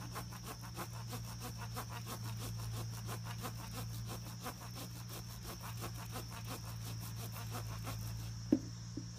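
Insects chirping in rapid, even pulses, about nine a second, over a steady high drone. A single sharp click comes near the end.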